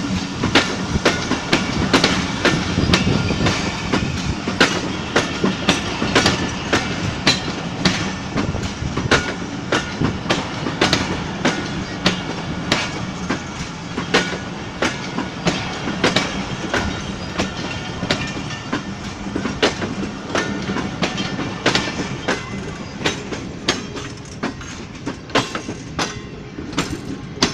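Pakistan Express passenger coaches rolling past, their wheels clacking sharply over the rail joints about once or twice a second over a steady rumble as the train runs into the station. The clatter eases slightly near the end.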